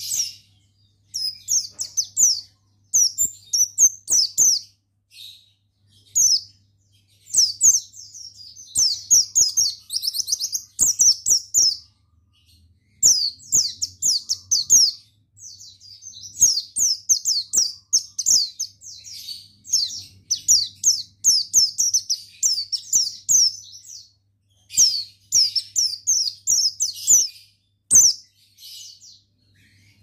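Buxtoni white-eye (pleci) singing: very fast, high twittering phrases of one to three seconds, broken by short pauses, with light clicks between them.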